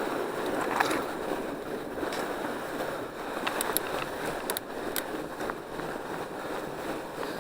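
Fat bike rolling along a packed snow trail: a steady rushing from the tyres and wind on the microphone, with a few sharp clicks and rattles.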